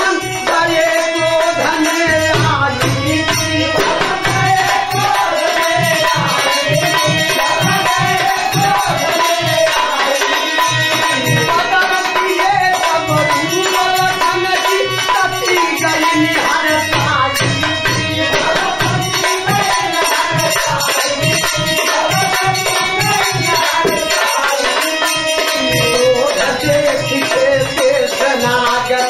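Bhojpuri birha folk music in a passage without words: a wavering melody over a steady hand-drum beat and shaken rattle percussion.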